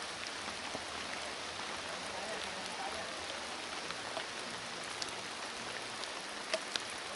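Steady rain falling: an even hiss of rain with scattered sharper drop ticks, a few of them louder near the end.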